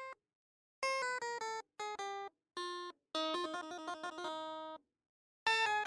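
Background music: a light, playful melody of short keyboard-like notes in quick phrases, broken by brief spells of total silence.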